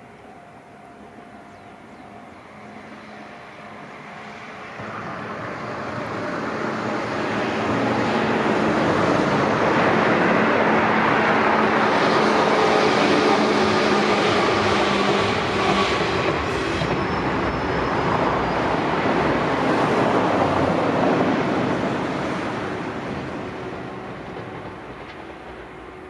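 Izuhakone Railway Sunzu Line electric train running past the level crossing. Its running noise builds over several seconds, stays loud for about twelve seconds, then fades away toward the end.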